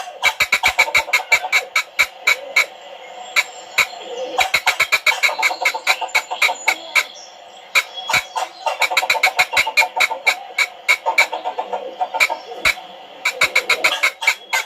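Hand-made squirrel call worked in runs of rapid, sharp barks and chatter that imitate a squirrel's bark, with a few short pauses between runs.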